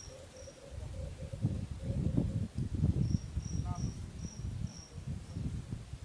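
Insects chirping: a short high chirp repeated about three times a second, twice in short runs, and a lower pulsing trill that stops about two seconds in. Under them, a low uneven rumbling noise comes and goes, loudest between about one and a half and three seconds in.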